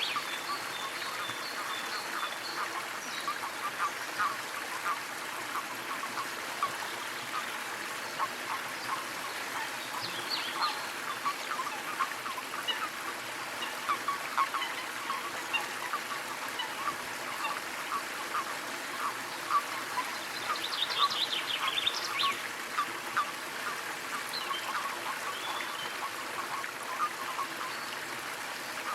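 Small waterfall trickling and splashing steadily, with many small plinking drips. Birds call now and then: a thin high note at the start, and short rapid chattering bursts about ten seconds in and again about twenty-one seconds in.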